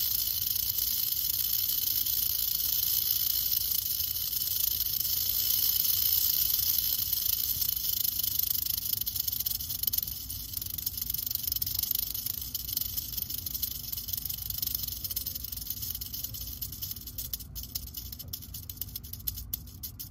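Western diamondback rattlesnake (Crotalus atrox) rattling its tail in a continuous high buzz. It drops in loudness about halfway through and fades toward the end.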